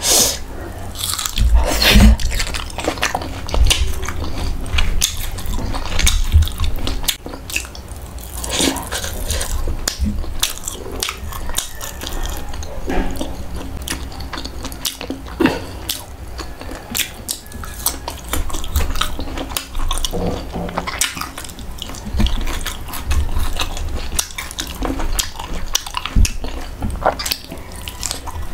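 Close-miked eating: chewing and crunching of crispy fried pork tail and green mango slices, with many small wet mouth clicks and smacks.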